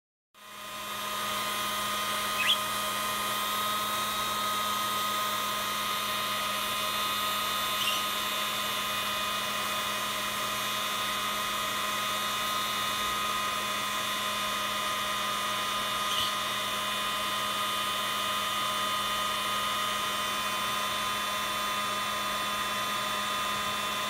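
Handheld hair dryer running steadily, its motor and fan giving a constant hum with several held tones; it rises over the first second. Three brief chirps from the budgerigar come through, a few seconds apart.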